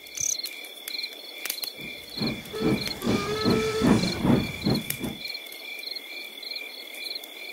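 Crickets chirping in a steady rhythm as night ambience. From about two seconds in, a toy-train scene's steam-locomotive chuffing sound effect passes for about three seconds, then stops.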